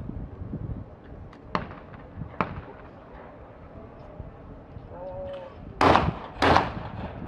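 Two 12-gauge shotgun shots about 0.6 s apart: a skeet double, one shot at each clay target of the pair. A short call comes just before the shots, and two lighter sharp cracks come earlier.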